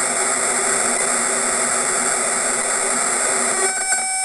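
Audio output of an Arduino logistic-map chaotic signal generator, a steady hiss much like white noise from its crudely filtered pulse-width-modulated outputs. About three and a half seconds in, a steady pitched tone with overtones comes through the hiss: the map settling into periodic behaviour, with the added noise still mixed in.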